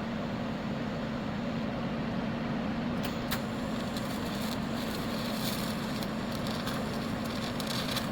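TIG welding arc crackling on snowblower steel, starting about three seconds in and cutting off near the end, over a steady electrical hum.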